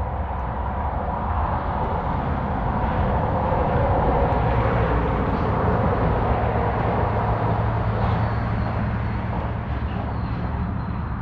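Engine noise of a passing vehicle, growing louder toward the middle and then fading, with a steady low hum in the second half.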